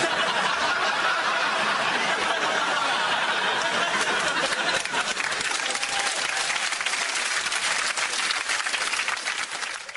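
Studio audience laughing and applauding, the laughter giving way to more distinct clapping from about four seconds in.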